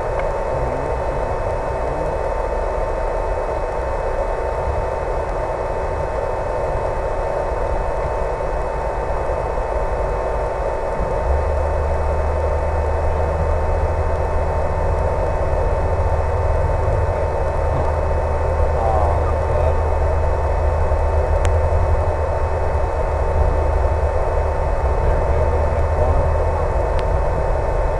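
FPV model airplane (HobbyZone Super Cub) in flight, heard over its onboard audio feed: a steady hiss with a constant hum. A low rumble comes in about eleven seconds in.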